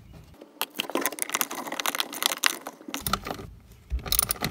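Small hardware and tools being handled up close: a quick run of light clicks and rattles over rustling and scraping.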